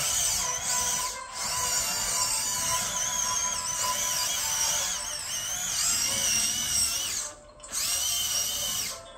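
Small electric gear motors of remote-control Johnny 5 toy robots whining as they drive, the high pitch wavering up and down with speed. The whine stops briefly about a second in and again near the end, then stops.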